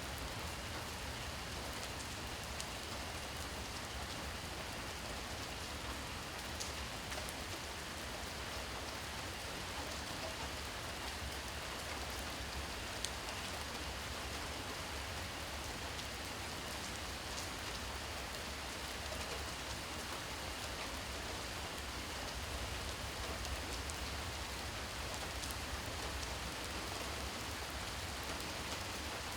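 Steady rain falling at night, a constant hiss with scattered individual drops ticking, over a low steady rumble.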